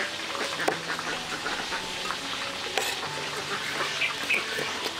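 Pieces of boiled pork frying in a pot of hot oil, sizzling with a dense, steady crackle of pops.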